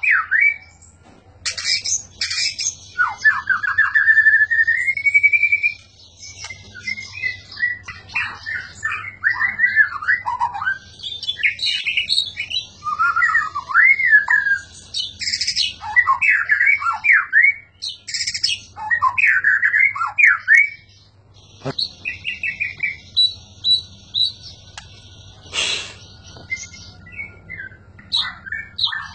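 White-rumped shama singing a long, varied song of loud whistled phrases that glide up and down, with a few sharp, short notes mixed in and brief pauses between bursts.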